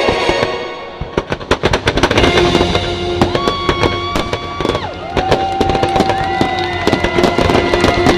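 Fireworks crackling and popping in quick, dense succession, starting about a second in, over show music with long held notes.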